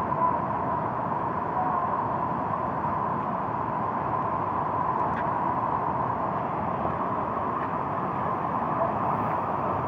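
Waterfall's steady rushing roar, an even noise that does not change.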